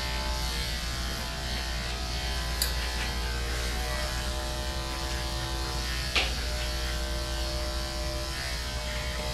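Corded electric dog-grooming clippers running steadily as they are worked over a dog's head and face, a constant buzzing drone.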